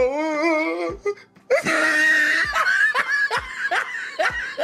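A woman laughing: a long wavering laugh, then a high squeal and a string of short laughing bursts, about two to three a second.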